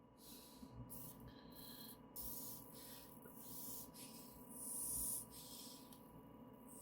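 MEK solvent sprayed softly from a bottle into an inkjet print head's nozzle area, heard as faint short spells of hiss, about a dozen, coming irregularly.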